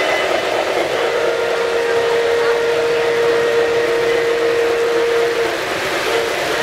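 Model trains running on a three-rail layout, a steady rumble of wheels on track. A single steady held tone sounds from about a second in to a second before the end, with a short repeat near the end.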